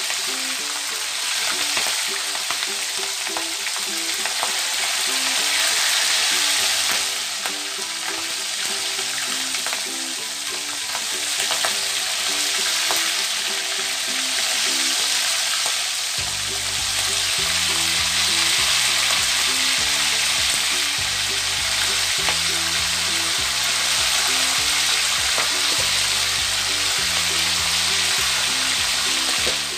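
Chicken pieces deep-frying in plenty of hot oil in a wok, with a steady sizzle. Background music plays along with it, and a bass line comes in about halfway through.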